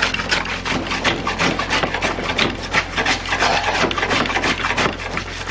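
Hand plane shaving pallet wood in quick, repeated strokes, each a scraping rasp of the blade cutting a curl.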